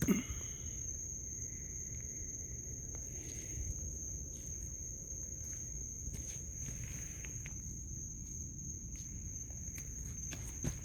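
Night insects, crickets or similar, trilling steadily at one high pitch, over a low outdoor rumble with scattered faint clicks and rustles.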